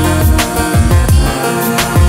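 Background electronic music with a steady beat: deep bass notes that slide down in pitch and sharp drum hits over sustained chords.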